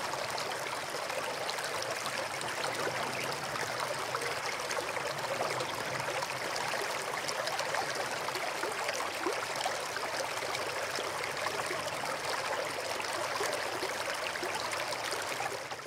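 Steady running water, like a stream, with small trickling and splashing ticks throughout.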